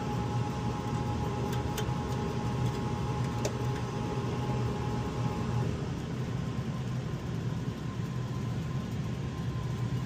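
Rheem gas furnace's blower and draft inducer running with a steady hum and a faint whine. One whine tone cuts out about halfway through. A couple of light metal clicks come from a hex key on the gas valve's test port plug.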